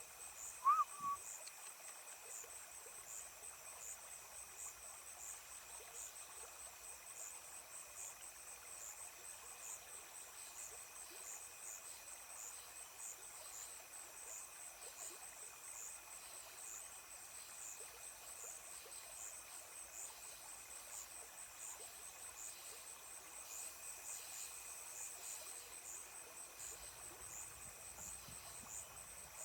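Insects chirping steadily in a high, pulsing drone, with one brief short call about a second in.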